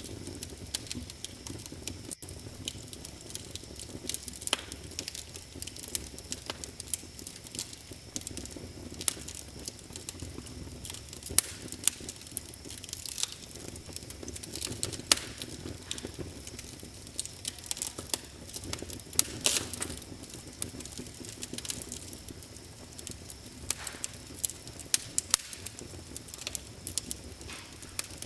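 Wood fire in a fireplace crackling, with frequent sharp irregular pops and snaps over a steady low hiss of burning.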